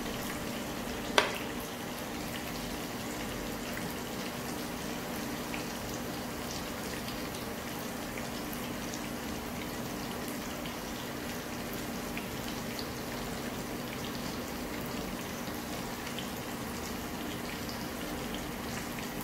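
Shallots and garlic sizzling in oil in a nonstick pan, a steady crackling hiss, over a steady low hum. One sharp click about a second in.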